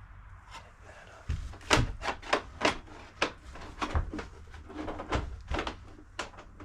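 Irregular sharp clicks and knocks of hard parts tapping together as a throttle cable is worked through the scooter's handlebar, about a dozen over several seconds, starting a little over a second in.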